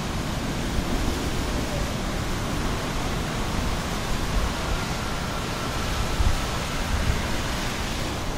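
Strong cyclone wind with rain: a steady rushing noise that holds even throughout.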